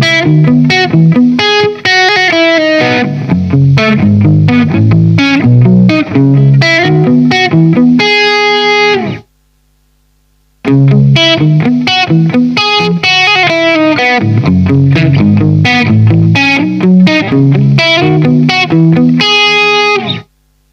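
SQOE SEIB950 electric guitar with humbucking pickups played through an overdriven, distorted tone: quick riffs and note runs. The playing stops a little after nine seconds in, falls silent for about a second and a half, then starts again and runs until just before the end.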